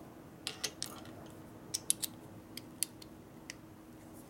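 Small metal clicks and taps, about nine in irregular groups, as a steel axle pin is worked by hand through the roller and body of a Harley-Davidson Sportster Ironhead roller lifter. A faint steady hum runs beneath.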